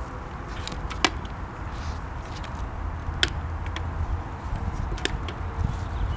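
Briggs & Stratton engine of a self-propelled walk-behind lawn mower running with a low, steady buzz, with a few sharp clicks about every two seconds. The owner calls the buzzing weird, notes the mower shakes, and wonders whether the crankshaft is bent.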